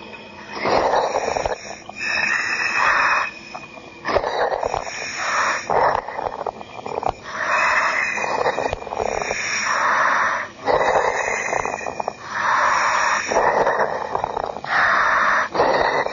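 A diver breathing hard through his breathing apparatus: rhythmic hissing inhalations and exhalations, one every second or two.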